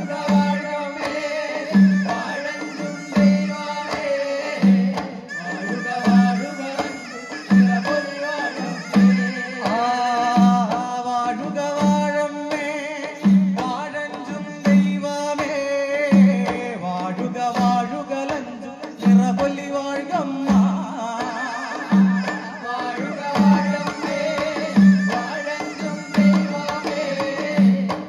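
Maramuttippattu, a Kerala folk song of praise to the goddess Karineeliyamma: male voices singing with a wavering melody over a steady beat of barrel drums, about three beats every two seconds.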